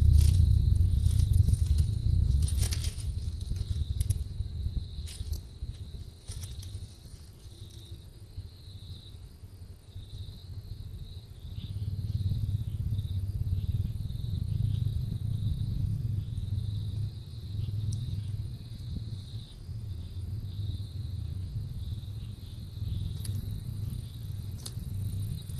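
Insects, likely crickets, trilling steadily over a low rumble, with a few sharp clicks near the start and near the end.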